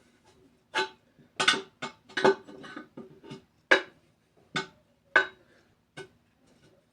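Metal prying tools clinking against a wheel rim as a tire bead is levered off in small bites: about eight sharp clinks over several seconds, some ringing briefly.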